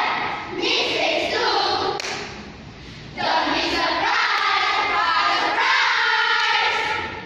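A children's choral speaking group voicing a piece in unison, many young voices in a pitched, sing-song chant. There is a short break about two seconds in, after which the whole group comes back in loudly.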